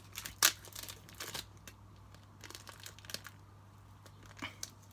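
Shipping packaging being handled and unwrapped by hand: irregular crinkling and rustling with a few sharper crackles, the loudest about half a second in.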